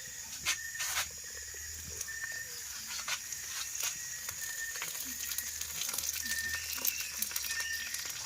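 Pork fat and ginger sizzling in a pan, with scattered crackles and pops. A short high chirp repeats about once a second in the background.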